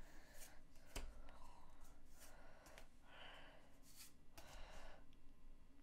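Very quiet: soft swishes of Pokémon trading cards being slid one behind another in the hand, with a light click about a second in.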